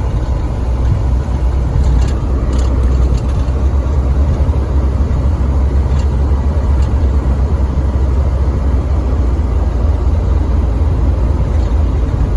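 Engine of a vehicle plowing snow, running steadily with a deep low rumble.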